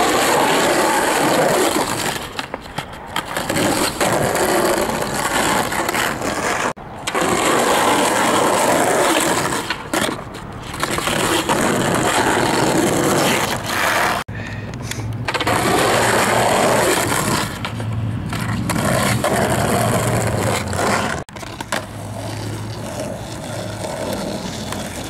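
Skateboard wheels rolling over rough asphalt, a loud, steady gritty noise that breaks off briefly three times.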